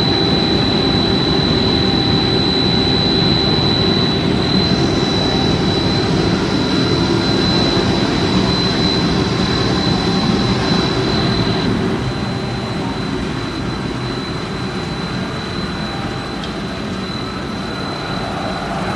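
Running machinery of a twin-screw extrusion line for snack pellets: a steady, loud machine noise with a thin high whine over it, a little quieter from about twelve seconds in.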